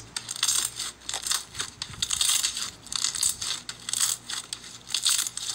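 Glossy slime being pressed, folded and kneaded by hand, giving a run of irregular crunchy crackles and small pops, several a second.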